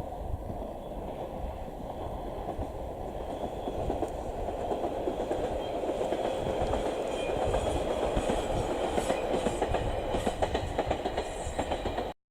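E721-series electric train running past, its wheels clattering over the rail joints in a rapid clickety-clack over a steady rumble, growing louder.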